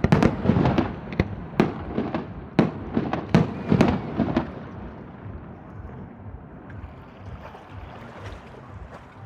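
Fireworks going off in quick succession: a rapid run of sharp bangs and pops that stops about four and a half seconds in. A low steady rumble is left after the bangs.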